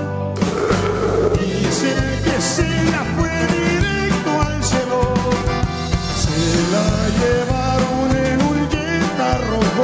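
Norteño band playing live: accordion melody over bajo sexto, bass, drum kit and congas, with a steady beat.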